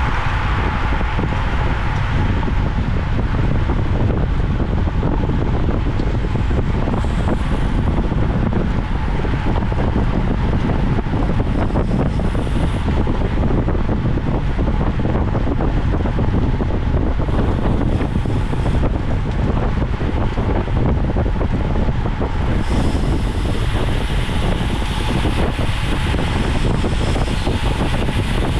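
Steady wind noise buffeting the microphone of a bicycle-mounted onboard camera while riding.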